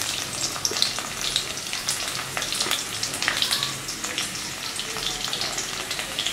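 Cumin seeds and garlic frying in hot oil in a kadhai: a steady sizzle full of small crackles.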